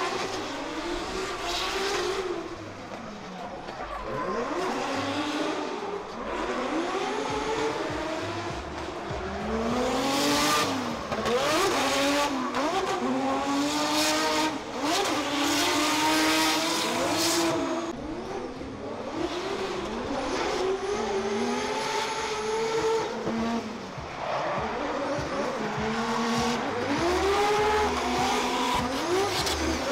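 Drift cars' engines revving hard, their pitch sweeping up and down again and again as they slide, with tyres squealing.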